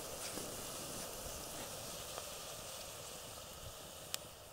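Chopped onions sizzling in oil in a pot over a wood fire: a steady hiss with a few small pops, and one sharp pop about four seconds in.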